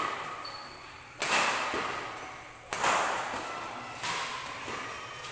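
Badminton rackets striking the shuttlecock in a rally: three sharp hits about a second and a half apart, each ringing out in the long echo of a large hall.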